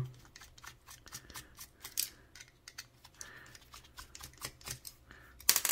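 Small precision screwdriver turning a tiny screw out of a plastic remote's circuit board: a run of small irregular clicks and ticks, with a sharper, louder click near the end.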